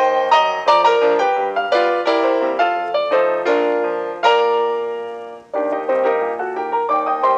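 Background piano music, a gentle melody of struck notes that ring and fade. The music dips away about five and a half seconds in, then starts again.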